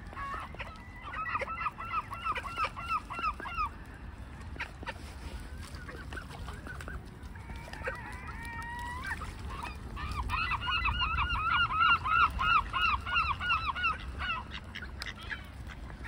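Gull calling in two long runs of quick, evenly pitched notes, about three a second, with a few gliding calls in between.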